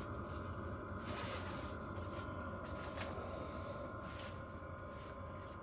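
Diesel air heater running steadily: a blower fan's whine over a low hum, with a few brief rustles.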